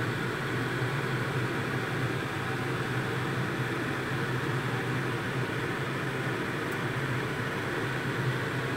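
Soup at a rolling boil in a steel pot, bubbling steadily over a constant low hum.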